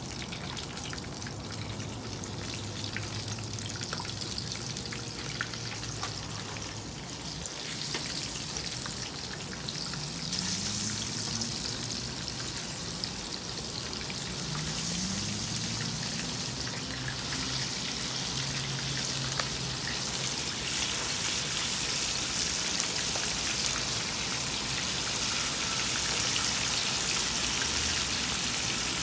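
Crab pieces frying in hot oil in a wok, a steady crackling sizzle. It grows louder about ten seconds in and again about twenty seconds in, as more pieces go into the oil.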